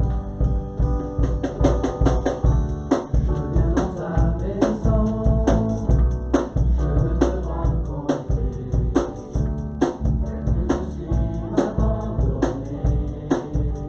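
Band music with a drum kit keeping a steady beat over a heavy bass line.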